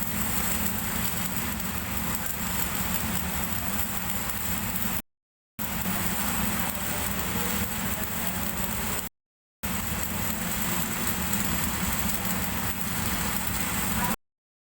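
Stick (SMAW) welding arc crackling steadily over a low hum. It breaks off abruptly to silence about five seconds in, again about nine seconds in, and near the end.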